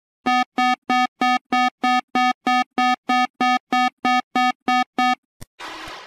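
Synthesized emergency-alert beeps: about fifteen short, identical buzzy tones, about three a second, stopping about five seconds in. After a click, a noisy siren-like sound starts just before the end.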